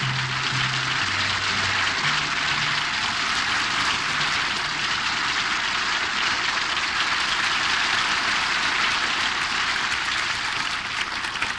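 Studio audience applauding steadily, with a few low notes from the band under it in the first few seconds.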